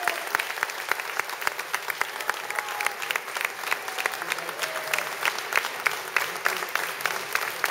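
Audience clapping: many hands clapping together at once, dense and sustained.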